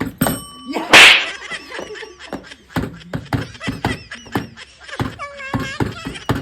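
A small bell rings briefly, then about a second in a single very loud, sharp slap cuts across it. Short knocks and laughing voices follow.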